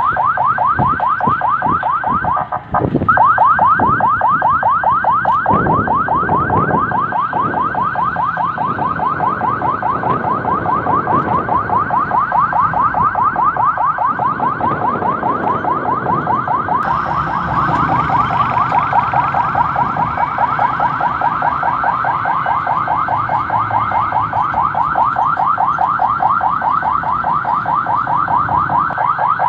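Vehicle-mounted electronic siren sounding continuously in a fast chirping pattern: short rising sweeps repeating several times a second. Low engine and road noise from the moving vehicle runs underneath.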